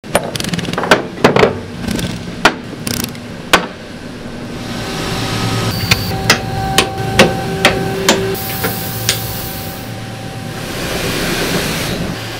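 Sharp metal clicks and clanks of cutting tools and tool holders being fitted by hand into a holder and into the spindle of a DN Solutions SMX 3100 ST mill-turn machine. After about four seconds a steady machine hum comes in under more clicks, with a short hiss near the end.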